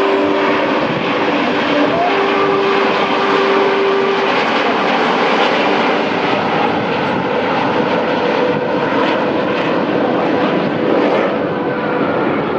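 Propeller-driven aircraft engines running steadily, a continuous engine sound with a faint held tone that shifts slightly in pitch partway through.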